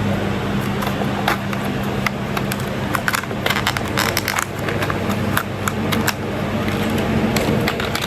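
Car driving, heard from inside the cabin: a steady low engine and road hum with frequent scattered clicks and crackles.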